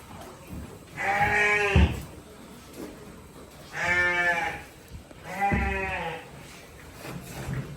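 Goats bleating: three drawn-out bleats of about a second each, the second and third close together.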